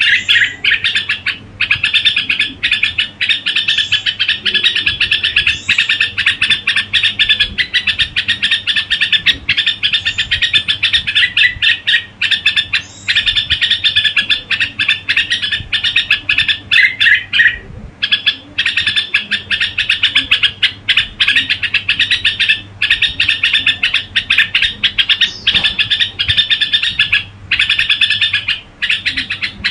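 Red-whiskered bulbul giving its 'gù' call, a fast run of repeated chirping notes almost without pause, broken by a few short gaps.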